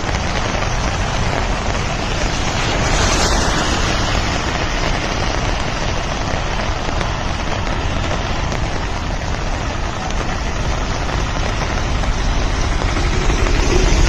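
Heavy rain pouring down: a steady, even hiss with a low rumble underneath.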